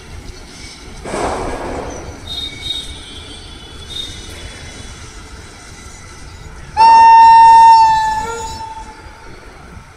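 Electric locomotive's air horn, one loud single-note blast starting suddenly about seven seconds in, held for about a second and then trailing away. Before it comes a brief rushing noise.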